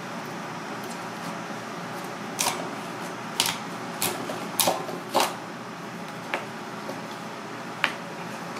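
Kitchen knife chopping through a red sea bream head and striking a plastic cutting board. Five sharp knocks come in about three seconds, then two lighter ones, over steady background noise.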